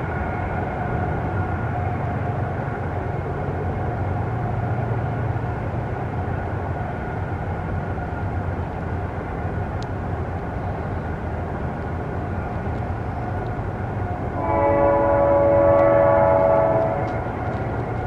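Passing train rumbling steadily, a faint horn tone dying away at the start. About fourteen seconds in, the locomotive's horn sounds one loud chord of several tones for about two and a half seconds.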